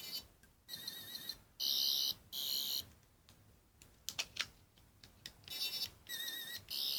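10th Doctor sonic screwdriver toy playing its electronic sound effect: short bursts of high, warbling buzz, about three in quick succession, then a few clicks, then three more bursts near the end.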